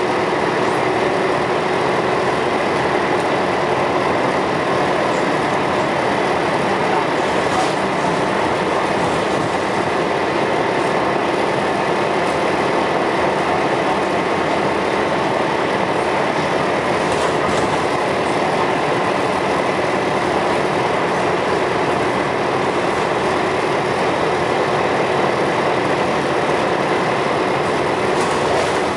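Scania L113CRL single-deck bus running steadily, a constant engine and road noise with a thin high whine held through it.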